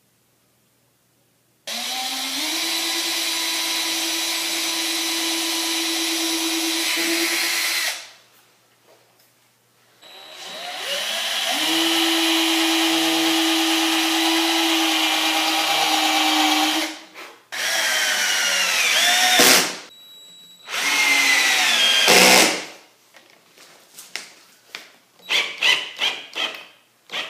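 Cordless drill countersinking holes in melamine-faced particle board: two long runs of about six seconds each, then two shorter runs whose pitch falls as the motor winds down, followed by light clicks and taps.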